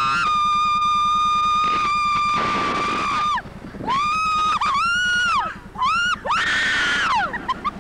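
Teenage girls screaming on a thrill ride: one long high scream held steady for about three seconds, then a string of shorter screams that rise and fall in pitch.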